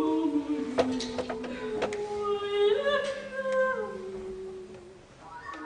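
Voices holding long sustained notes, two or three at once, moving up and down in small steps, with a few sharp clicks around them. The notes fade out about five seconds in and new ones start just before the end.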